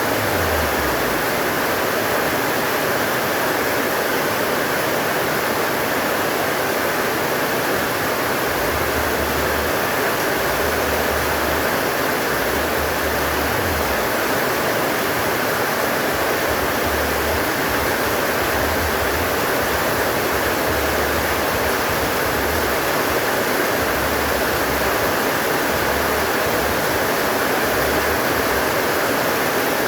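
Heavy rain pouring down in a steady, dense hiss, with strong wind; low rumbles from the wind come and go from about eight seconds in.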